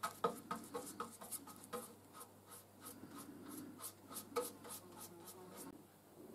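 Paintbrush stroking paint onto the sheet-copper lamp top: a quick, irregular run of short scratchy brush strokes, a few a second, that stops near the end.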